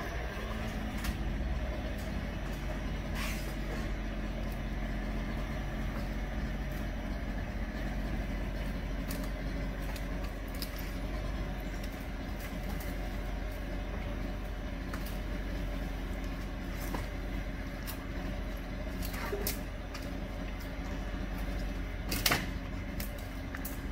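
Engine of heavy demolition machinery running steadily, with scattered sharp knocks and cracks from the work; the loudest knock comes near the end.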